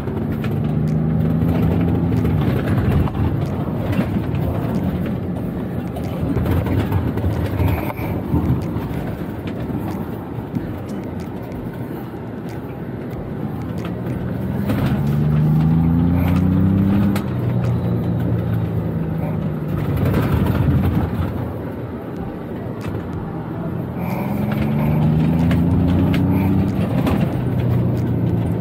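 Ford Bronco Badlands engine accelerating hard on a dirt course: its note climbs and then drops back three times, about a second in, around the middle, and near the end, over a steady rush of noise.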